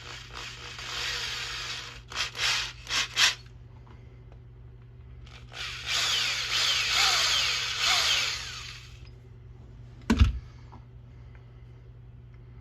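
Power drill opening up the top of a drilled hole in a nylon part to ease the start of a tap. It runs briefly, then in three or four short spurts, then for about three seconds. A single knock comes near the end.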